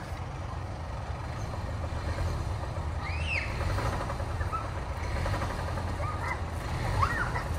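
A 2016 Kia Optima engine idling with a steady low rumble. The owner says it has an audible knock, which he takes for rod knock after the engine ran low on oil.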